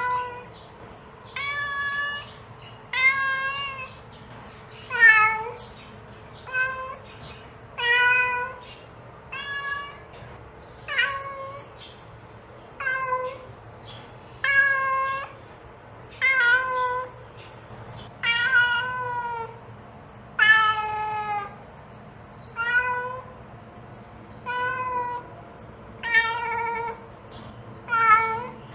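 A mother cat calling her kittens with a steady run of about twenty short meows, roughly one every second and a half, each bending up and down in pitch.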